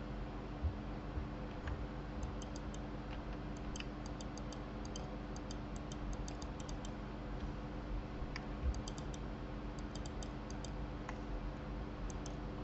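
Light clicks of a computer mouse and keyboard, coming in quick runs of three to five, over a low steady computer hum.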